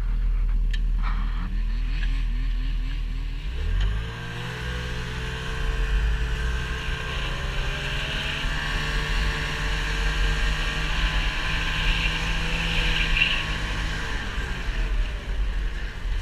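An engine speeds up about four seconds in, runs at a steady speed, then slows again near the end.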